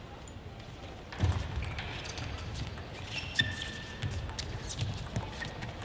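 Court sounds of a table tennis doubles match: irregular low thuds of feet on the floor, light clicks, and a couple of short high shoe squeaks from about three seconds in.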